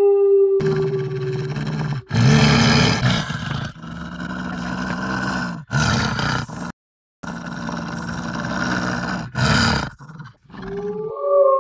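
Wolf sound effect: a howl ends about half a second in, then rough growling calls come in several bursts, with a brief silence about seven seconds in. A new howl rises near the end.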